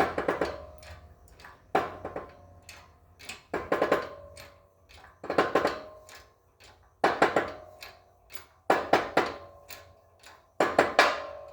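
Wheel hub being pressed into a steering knuckle's wheel bearing by a 12-ton hydraulic press: a burst of sharp metallic cracks and creaks with a short ring about every second and a half, seven times, one with each push of the press. The noise is the sign that the hub has bottomed out and is seated.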